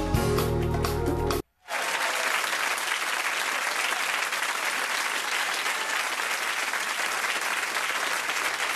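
Music playing, cutting off abruptly about a second and a half in, then a studio audience applauding steadily.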